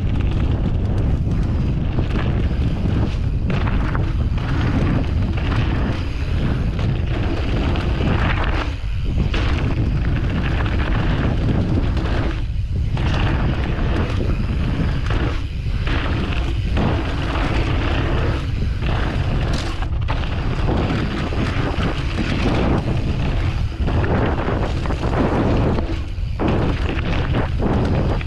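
Wind buffeting a GoPro's microphone together with bike tyres rolling over a dirt trail during a mountain bike descent: a loud, steady rumble with short dips every few seconds.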